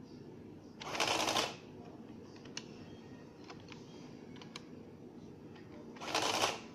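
Citizen CX-123 printing calculator's print mechanism chattering out a line twice, each burst lasting under a second, with a few light key clicks between.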